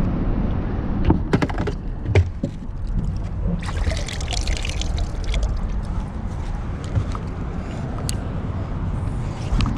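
Water splashing and dripping in a bait bucket as a live shad is grabbed out by hand, about four seconds in, over a steady low rumble. A few sharp knocks come before it.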